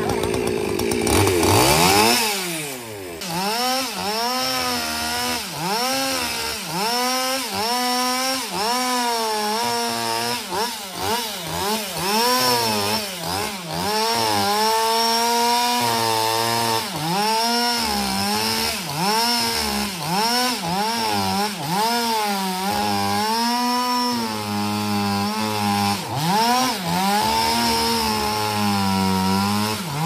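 Petrol chainsaw cutting through a thick hardwood log. It revs hard about a second in and drops back briefly, then its engine pitch rises and falls again and again as the chain bites and bogs in the cut, holding high for longer stretches later on.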